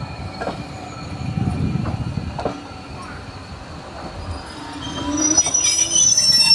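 Pannier tank steam locomotive moving slowly alongside the platform: a low rumble with a knock about once a second, and steam escaping at the cylinders. From about five seconds in, high-pitched wheel squeal becomes the loudest sound.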